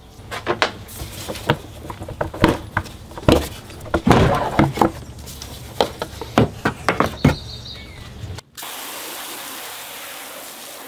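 A car engine cover being pulled and worked loose from its mounts: a run of clicks, knocks and rattles. About eight and a half seconds in, it cuts to the steady hiss of a garden hose spray nozzle washing the removed cover.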